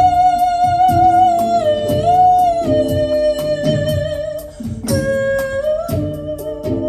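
Live ensemble music: a long, held melody line gliding between pitches sounds over struck hang notes that ring and fade, with a steady quick ticking beat. The melody breaks off and resumes on a lower note about five seconds in.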